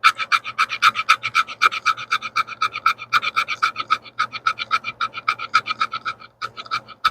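The 90-degree spine of a closed folding knife scraped rapidly along fatwood, about seven quick strokes a second, with two brief pauses. The spine takes shavings well: it works as a scraper.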